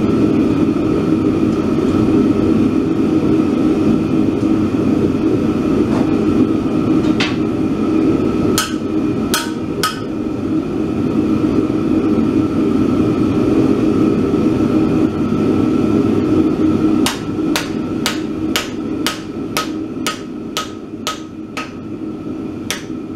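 Hand hammer striking a slitting chisel into a hot steel bar on an anvil: a few scattered blows, then past the middle a steady run of about two blows a second. A loud steady drone runs underneath throughout.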